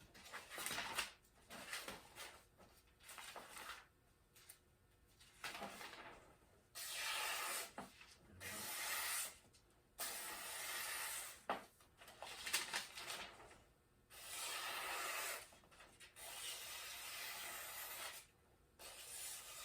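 Freshly sharpened 8-inch Henckels chef's knife slicing through a sheet of paper in a string of strokes, each a hissing slice about a second long with short scraping sounds between. It is a paper test of the edge, where a missed nick would make the blade grab the paper.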